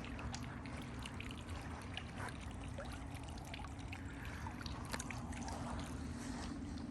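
Water fountain splashing and trickling steadily.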